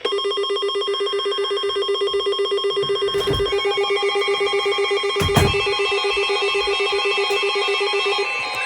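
Electronic emergency-alert tone: several steady pitches pulsing rapidly in a ringing trill, with more tones joining about three seconds in. It is the attention signal ahead of a tornado warning. Two short low thumps come about three and five seconds in.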